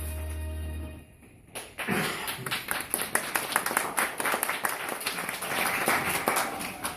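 A held musical chord stops about a second in, and after a brief pause an audience claps and applauds for the rest of the time.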